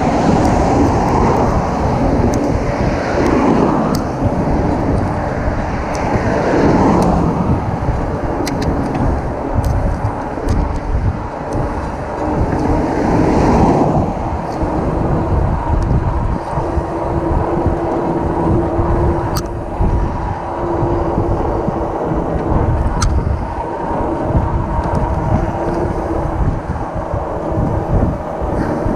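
Wind buffeting the microphone and tyre rumble on a steel bridge deck, heard from a moving e-bike. Passing cars swell and fade three times in the first half. A low steady hum runs through the second half, and a few sharp clicks come through.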